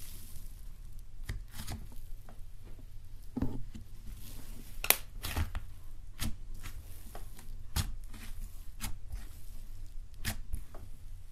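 Thick slime being pressed and kneaded flat by hand on a table, giving irregular sticky crackles and pops as it pulls off the fingers and air pockets in it burst.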